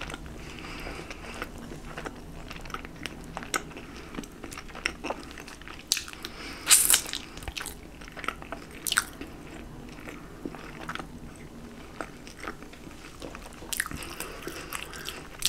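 Biting and chewing chicken wings close to the microphone, with scattered crunchy snaps, the loudest about seven and nine seconds in.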